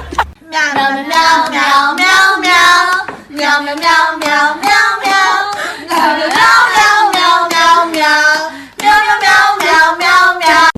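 A high-pitched voice singing a string of held, wavering notes in short phrases with brief breaks between them.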